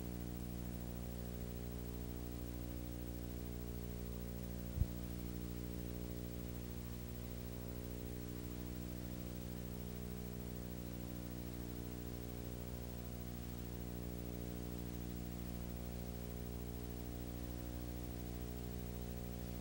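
Steady low electrical buzz of mains hum with hiss, and one sharp click about five seconds in.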